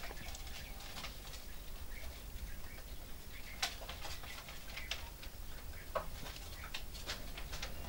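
Irregular light ticks and rustles from chicks shifting and pecking in wood-shavings brooder litter, a few sharper clicks among them, over a steady low hum.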